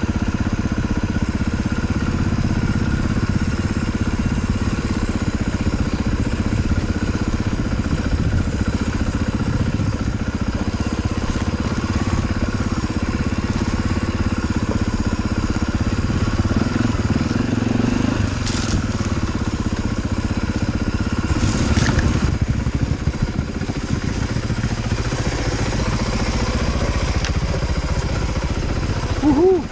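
Dirt bike engine running at trail speed, its revs rising and falling as it picks over rough, rocky ground. A couple of sharp knocks from the bike over the rocks about two-thirds of the way through.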